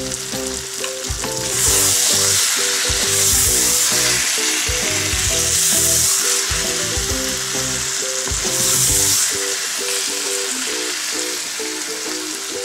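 Meat kababs and thick masala sizzling hard in a nonstick karahi on high heat, swelling louder every couple of seconds as a wooden spoon turns them. The masala is at the bhuna stage, fried down until the oil begins to separate. Background music plays underneath.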